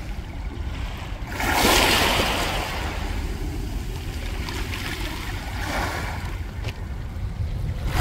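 Small waves washing up a beach of rounded mongdol pebbles and rolling the stones. One wash swells about a second and a half in and fades slowly, a smaller one comes near six seconds, with a few faint clicks of stones. Wind rumbles on the microphone throughout.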